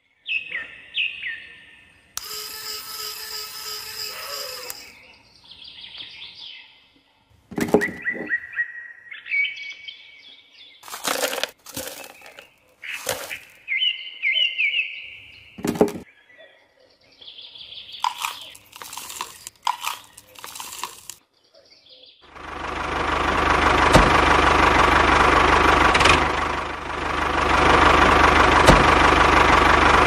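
Scattered short bird-like chirps and sharp clicks, then, about two thirds of the way in, a loud steady machine whirr from the small electric motor of a DIY toy farm vehicle starts up.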